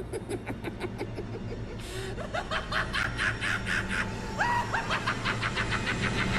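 A cartoon villain's manic snickering laugh, a fast run of short giggling breaths with a couple of rising squeals in the middle, over a low steady background hum.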